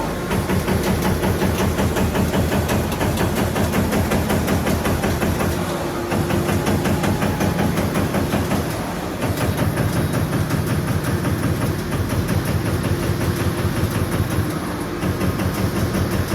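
AMADA EMZ 3510 NT servo-electric CNC turret punch press punching sheet metal in a rapid, even series of strokes over a low machine hum. The run breaks off briefly three times, about six, nine and fifteen seconds in, then carries on.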